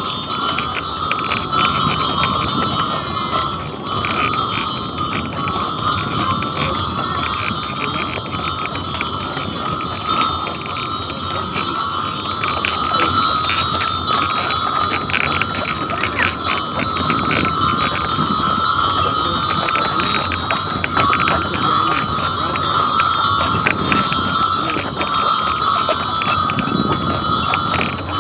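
Bells on a team of draft horses' harness jingling steadily as the horses walk, with a dense patter of small clinks and hoof falls throughout.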